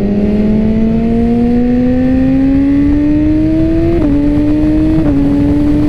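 BMW S1000RR inline-four engine pulling under acceleration, its pitch rising slowly, then dropping a step with a quick upshift about four seconds in and again about a second later, over wind rush on the bike.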